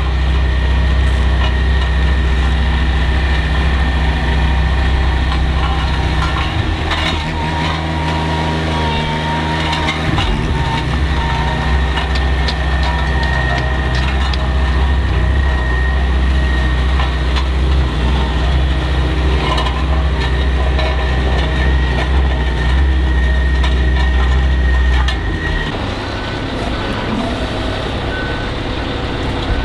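Scania R520 truck's V8 diesel engine running steadily, with a thin steady high whine over it. About 25 seconds in, the engine drops lower and a little quieter.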